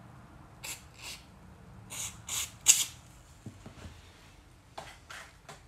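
Aerosol lubricant can sprayed into an open combination padlock's wheel pack in several short hisses during the first three seconds, with a few shorter bursts near the end and light clicks of the lock's parts in between.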